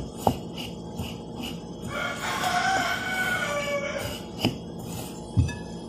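Metal spoon clicking and scraping against a glass bowl as grated coconut and condensed milk are stirred, with a few sharp knocks of the spoon on the glass. A rooster crows in the background from about two seconds in, one call of about two seconds that sinks slightly in pitch.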